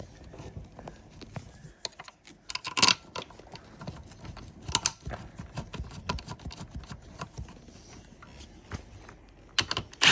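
Light, irregular clicking and tapping of metal bolts and a steel seat bracket being handled and fitted, with a few louder knocks about three seconds in, about five seconds in and near the end.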